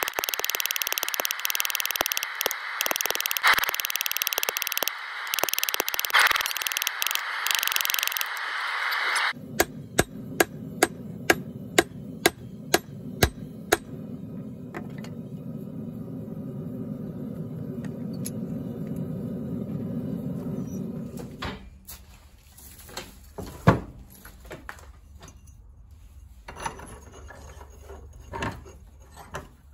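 Hand hammer striking glowing hot steel on a railroad-track anvil, a run of sharp ringing blows at about two a second over a steady low hum. Before the blows there is a loud steady hiss; near the end only a few scattered clicks remain.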